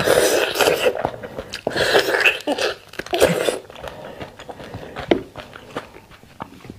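Wet, messy bites and chewing of spicy sauced beef bone marrow, loudest over the first three and a half seconds, then quieter chewing with a single click about five seconds in.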